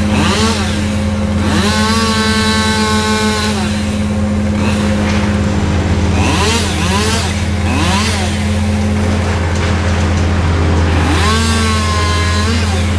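A chainsaw revving up, running at speed and dropping back in three spells, over the steady low drone of a running engine.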